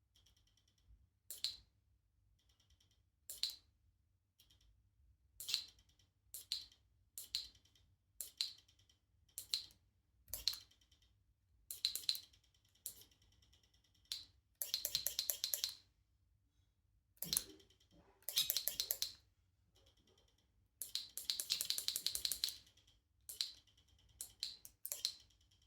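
Shimano GRX RD-RX825 12-speed Di2 electronic rear derailleur, unmounted, shifting over and over: a series of short sharp clicks and buzzes, with three longer runs of rapid ticking lasting a second or two each in the second half. Ticking of this kind after shifts made the owner suspect skipping or stripped plastic gears inside, but Shimano says it is normal for this derailleur.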